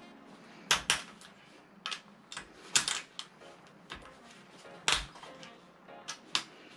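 Sharp metallic clicks and clinks, irregularly spaced, from a ratchet wrench and socket working the cam case bolts on the engine head. Background music plays faintly.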